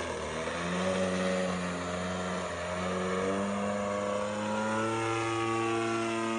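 The 35cc single-cylinder two-stroke gasoline engine (DLE-35RA) and propeller of a radio-control aerobatic plane in flight, a steady buzzing note that wavers and shifts in pitch as the plane manoeuvres and climbs.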